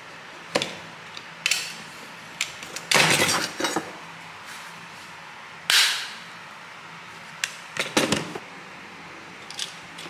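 Utility knife blade scoring a thin PVC sheet along a metal edge: a series of short, sharp scrapes and clicks, the loudest a longer scrape about three seconds in and another just before six seconds.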